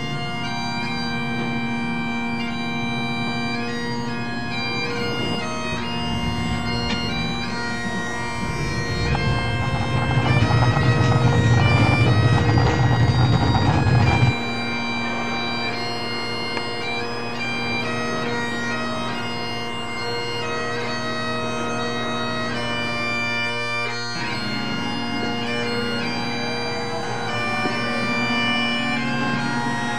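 Bagpipe music, a melody played over a steady drone. From about nine seconds in, a loud low rumbling noise lies over it for about five seconds and then cuts off suddenly.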